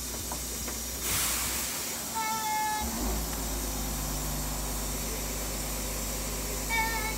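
Steady low engine hum that drops out briefly and comes back, with a short burst of hissing air about a second in. A short high squeal follows the hiss, and another comes near the end.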